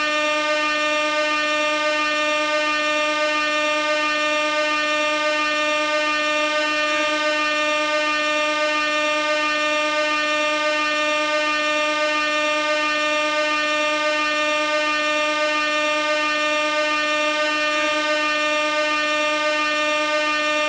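Gas-powered air horn sounding one long, unbroken, steady note that keeps the same pitch and level throughout.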